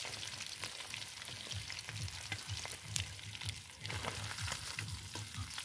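Hilsa fish pieces sizzling in hot oil in a metal karahi, with a metal spoon clicking and scraping against the pan as the fried pieces are lifted out.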